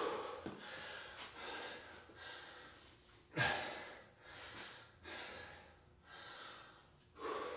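A man breathing hard from exertion while holding and pulsing in a half squat: quick breaths about once a second, with two louder puffs, one about a third of the way in and one near the end.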